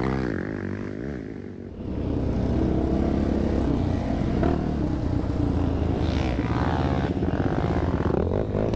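Sport quad (ATV) engine running under throttle, heard from on the machine. Its sound drops off over the first second or two, then picks back up and runs steadily.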